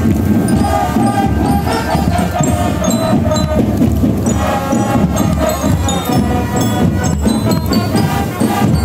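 Marching band playing live: brass horns sounding held chords over marching drums.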